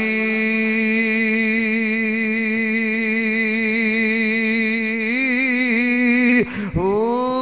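A man's voice holding one long sung note at the end of a chanted line of Punjabi verse, steady with a brief waver about five seconds in. It breaks off about six and a half seconds in and then takes up another held note.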